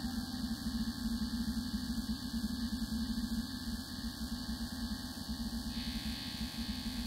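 Modular synthesizer patch (Serge system with a Double Knot) putting out a chaotic, noisy drone with a low hum underneath, in the manner of a Blippoo Box patch. The texture flickers in loudness and shifts slightly about six seconds in.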